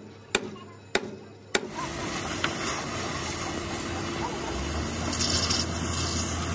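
Three hammer blows on the steel chassis rail of an Isuzu truck, about two-thirds of a second apart. About a second and a half in they give way to the steady hiss of an oxy-fuel gas torch working on the frame, which grows louder for a moment about five seconds in.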